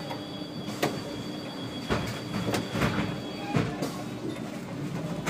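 Cab interior of a SOR NB12 City bus standing still: a steady hum with a thin high-pitched whine that stops about four seconds in, and a run of sharp clicks and knocks through the middle.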